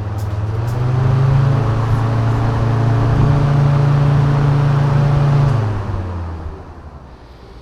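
Nissan 350Z's electric radiator cooling fans running at speed: a loud steady hum that steps up in pitch about a second in, holds, then winds down near the end.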